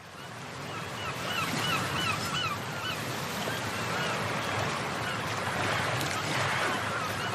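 Birds calling: a quick run of short rising-and-falling notes in the first couple of seconds, then fainter calls. They sit over a steady rushing background that fades in at the start.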